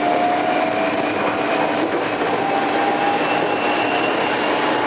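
Inside a Tokyo Metro 03 series VVVF inverter-controlled car on the move: steady rolling noise of wheels on rail, with the traction motor and inverter whine rising slowly in pitch as the train gathers speed.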